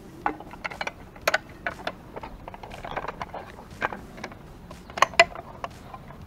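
Irregular small metal clicks and knocks as a motorcycle headlight bucket's mounting bracket and bolt are handled and fitted against the front fork, with two sharper knocks about five seconds in.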